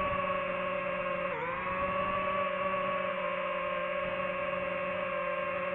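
DJI FPV drone's motors and propellers whining steadily, the pitch dipping briefly about a second and a half in as the throttle eases, then recovering.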